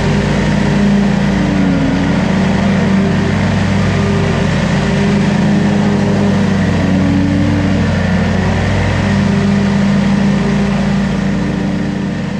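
Commercial mower's Kohler engine running steadily under load with the blades cutting grass, its pitch wavering slightly; the sound begins to fade near the end.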